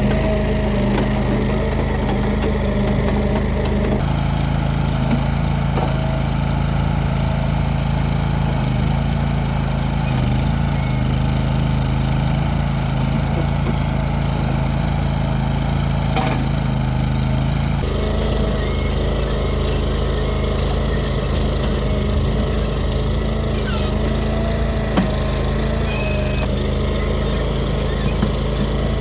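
Gasoline engine of a Struck MagnaTrac Hydro 5000 compact track loader running steadily. Its note shifts about four seconds in and again after about eighteen seconds, as its speed or load changes.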